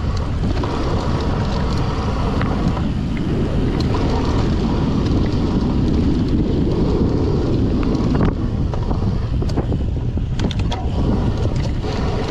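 Wind rushing over the camera microphone and a drop-bar gravel bike's tyres rolling fast over a rough dirt trail on a descent, with a string of sharp rattles and clicks from the bike over bumps later on.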